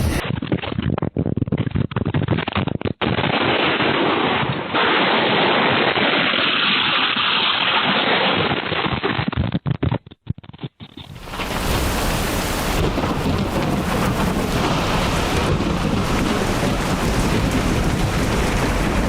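Thunderstorm: loud, steady noise of heavy rain and storm wind with rumbling. The sound drops out briefly a few times before a cut at about eleven seconds in, after which the same kind of storm noise carries on.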